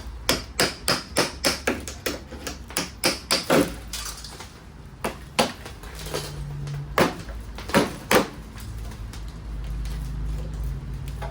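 Hammer blows on the car's sheet-metal bodywork: a quick run of sharp strikes, about three a second, then a few single blows spaced a second or so apart.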